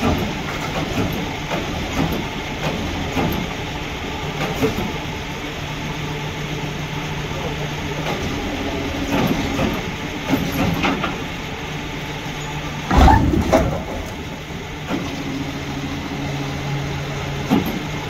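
Isuzu tilt tray tow truck's diesel engine running steadily while its winch pulls a rolled Toyota HiAce van back upright, with scattered knocks and creaks. About two-thirds of the way through, a loud double thump and clatter as the van drops back onto its wheels.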